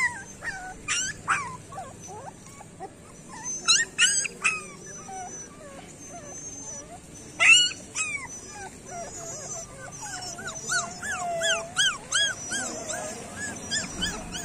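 A street-dog puppy whimpering and squealing in high-pitched cries while its mother noses and licks it. The cries come in bursts, with the loudest about halfway through, then a quick run of short rising-and-falling whimpers near the end.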